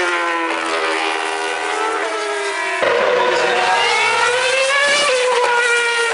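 Formula 1 car's V8 engine at high revs, its pitch falling as the car slows. About three seconds in the sound changes abruptly to a car's engine climbing in pitch as it accelerates, then easing off near the end.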